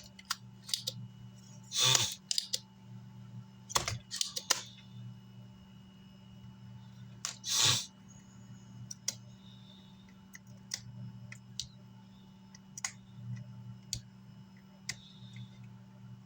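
Scattered small clicks and taps of hand tools working on an amplifier circuit board, over a steady low hum, with two short hissing bursts about 2 seconds and 7.5 seconds in.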